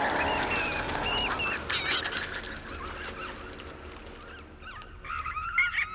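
Shrill chirping and squeaking calls of a pack of compys (Procompsognathus), small film dinosaurs: several short wavering chirps in the first two seconds and another cluster near the end, over a low rumble.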